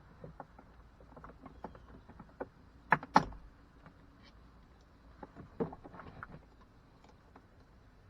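Scattered light clicks and taps of a pocket knife prying at door-panel trim, with two sharper clicks about three seconds in and a few more around six seconds.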